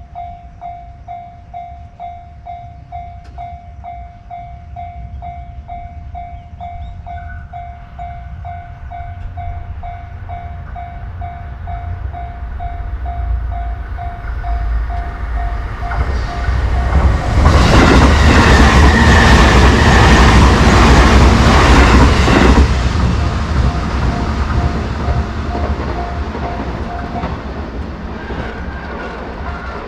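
Japanese level-crossing alarm ringing at about two dings a second while a JR Nanbu Line electric train approaches and passes. The train's rumble and rail noise build, are loudest for about five seconds in the middle, then fade. The alarm stops near the end.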